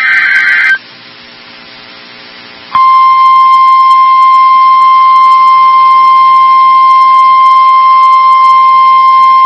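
Emergency Alert System SAME header data burst, a short buzzy screech lasting under a second, followed about three seconds in by the steady 1050 Hz NOAA Weather Radio warning tone, which holds unbroken: the opening of a new weather alert.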